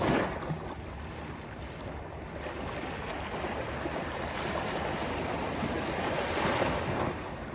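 Sea waves washing onto a beach, one surging right at the start and another swelling and breaking near the end, with wind buffeting the microphone.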